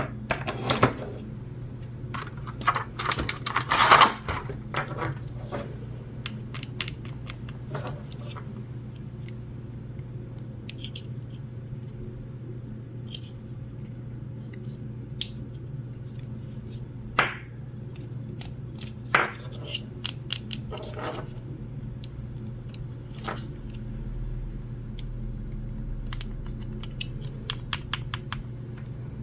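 Small plastic toy pieces being handled, with scattered clicks and taps, busiest in the first few seconds and then only now and again, over a steady low hum.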